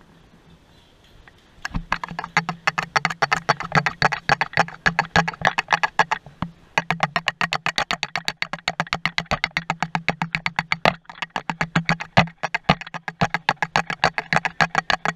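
Rapid, even clicking, about six clicks a second, over a low steady hum, starting about two seconds in with a couple of brief breaks.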